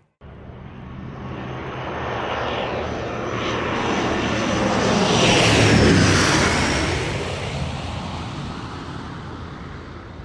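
Fixed-wing aircraft passing overhead: the engine roar grows louder to a peak about six seconds in, drops in pitch as it goes by, then fades away.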